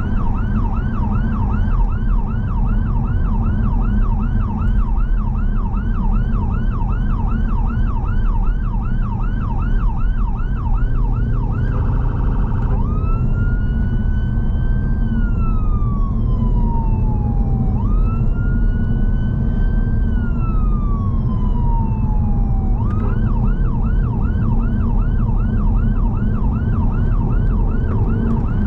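Ambulance-service response car's electronic siren, heard from inside the car over steady engine and road noise: a fast yelp rising and falling about three times a second, a brief steady tone about twelve seconds in, then two slow wails that each climb and fall over about five seconds, and back to the fast yelp.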